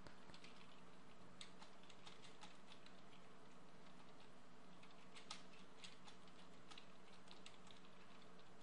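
Faint typing on a computer keyboard: quick, irregular keystroke clicks over a low steady hum.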